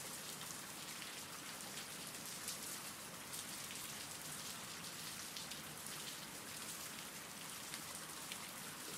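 Steady rain falling, a soft even hiss with a few faint drop ticks.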